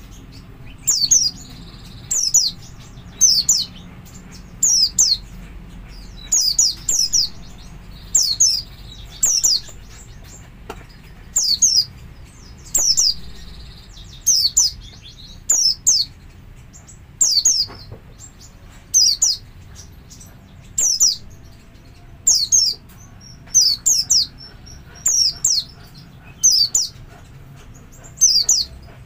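White-eye (pleci) giving its 'double' call: short, high, downward-sliding notes, mostly in pairs, repeated every one to two seconds. This is the call keepers use to lure other white-eyes into calling.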